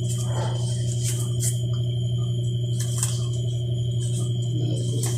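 A steady low electrical-sounding hum with a thin steady high tone above it, unchanging throughout, with a few faint ticks.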